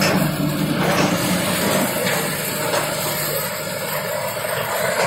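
Raffia waste grinder with its blower running: a loud, dense, steady mechanical noise, with a low hum that fades out about two seconds in.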